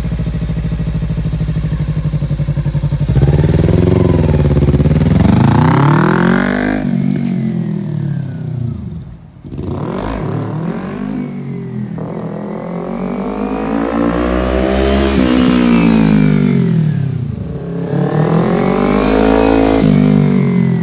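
Motorcycle engine idling steadily, then pulling away: its pitch climbs and falls back three times as the bike is ridden and throttled up and down.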